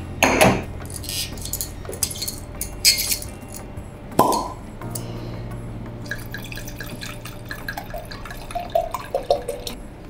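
Red wine glugging from a bottle into a large stemmed wine glass, with a few glassy clinks of bottle and glass in the first few seconds.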